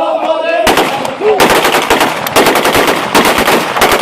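Voices at first, then from about half a second in long, rapid bursts of automatic gunfire, shot after shot with brief breaks between bursts.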